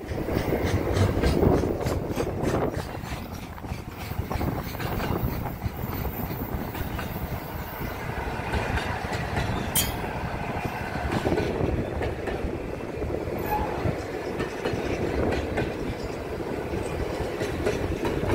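Double-stacked container freight wagons rolling past with a steady rumble, their wheels clicking regularly over the rail joints, most clearly in the first half. One brief sharp click comes about ten seconds in.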